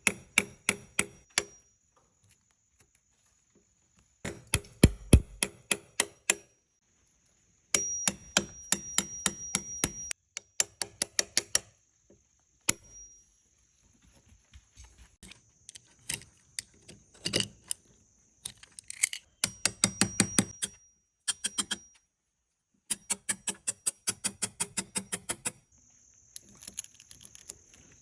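A chisel being tapped into the edge of a door to cut a recess for a deadbolt. It goes in quick runs of sharp taps, several a second, with short pauses between the runs.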